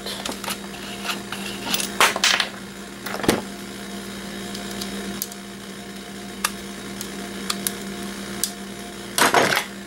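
Scattered light clicks and taps of a metal driver bit being worked with pliers and handled, over a steady low hum.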